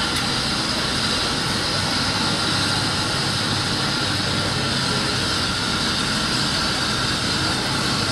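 Steam locomotive blowing off steam, a steady loud hiss.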